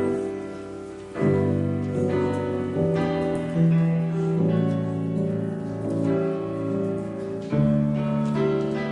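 Grand piano played slowly, sustained chords changing every second or two. A fresh full chord is struck about a second in and another near the end.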